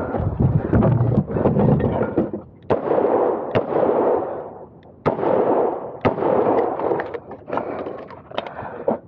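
Smith & Wesson 625 revolver firing a string of single shots, roughly a second apart, with rustling movement noise between them.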